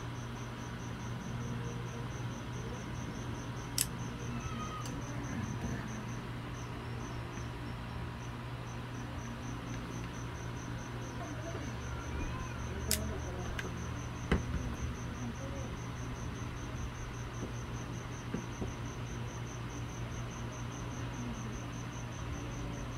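A cricket chirping in a rapid, even, high-pitched pulse train, briefly breaking off about six seconds in, over a steady low hum, with a few faint clicks.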